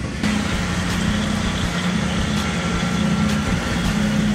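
Steady machine drone: a dense, even running noise with a low hum that shifts slightly in pitch, as of an engine or generator running.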